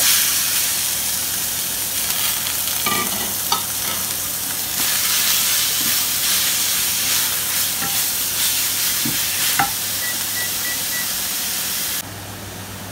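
Frozen minced pork sizzling in hot oil and garlic in a wok as it is tipped in and stirred with a wooden spatula, with a few knocks and scrapes of the spatula against the pan. The sizzling cuts off suddenly near the end.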